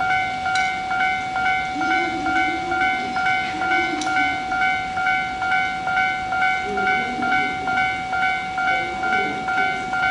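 Railway electronic warning bell ringing in a fast, even repeating pattern, about two and a half beats a second, as a train approaches the station. Two sharp clicks sound about half a second and four seconds in.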